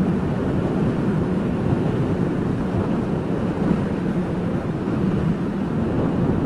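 A 35-year-old Japanese motorcycle riding along at a steady speed: its engine runs under a steady rush of wind on the microphone.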